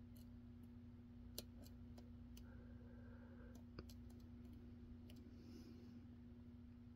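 A few faint, sharp clicks of lock picks working the pins inside a 5-pin pin-in-pin padlock (Mighty Lock MTL clone), the clearest about a second and a half in and again near four seconds, over a steady low hum.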